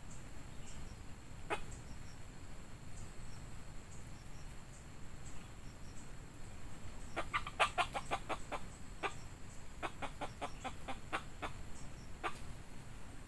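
Red junglefowl rooster clucking in short, sharp notes. There is a single cluck about a second and a half in, then rapid runs of clucks, about six a second, from about seven seconds in and again around ten to eleven seconds, with one more near the end.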